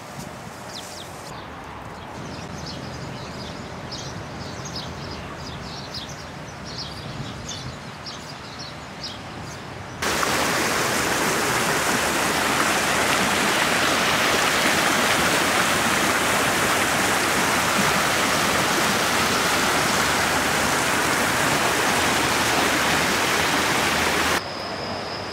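Fountain jets splashing, a loud, steady rush of falling water that starts abruptly about ten seconds in and cuts off shortly before the end. Before it there is a quieter open-air background with many short, high bird chirps.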